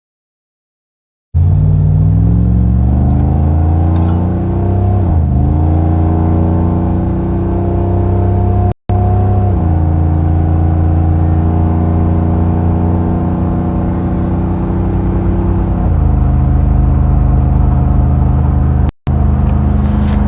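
6.0-litre LQ4 V8 of a modified GMC Yukon Denali accelerating. Its note climbs and then drops sharply as the freshly swapped 4L80E automatic upshifts, twice. It then holds steady and steps down in pitch near the end.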